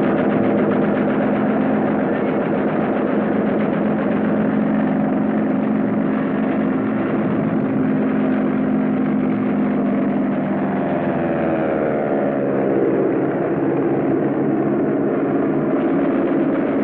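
Steady drone of piston aircraft engines, a warplane formation in flight on an old film soundtrack, with the pitch shifting briefly about ten seconds in.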